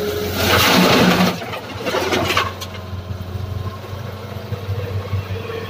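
A bucketload of wet, muddy soil dumped from an excavator bucket into a steel dump-truck bed: a loud rush of falling earth about half a second in and a second, shorter one about two seconds in. Under it the excavator's diesel engine runs steadily.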